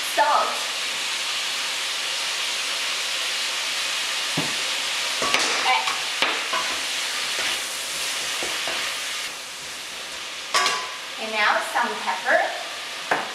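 Minced beef and radish sizzling in a hot wok while being stir-fried, with a steady hiss and scattered knocks and scrapes of a wooden spatula against the pan. The sizzle gets quieter about nine seconds in, and a few louder clatters come near the end.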